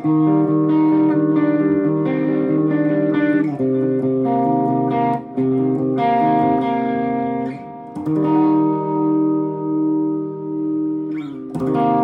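A Stratocaster-style electric guitar plays a ringing chord riff through the first (orange) channel of a Bad Cat Two-Tone preamp pedal, with a little delay, heard from a Bad Cat amp head and 2x12 cabinet. The chords change every second or two. From about two-thirds of the way in, a long held chord swells and fades before a fresh strum near the end.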